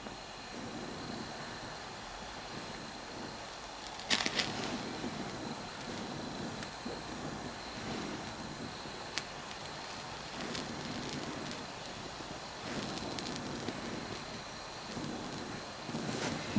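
Oxy-acetylene torch flame hissing steadily while brazing a nickel-copper oil line to steel, with a few brief clicks and taps.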